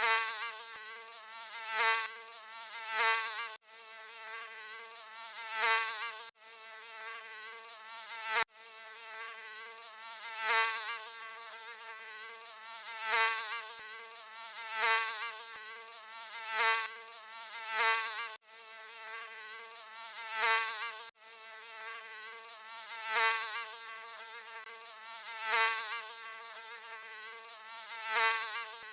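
Mosquito buzzing: a high, wavering whine that swells loud every second or two as if flying close past, then falls back. A few brief dropouts where the recording is looped.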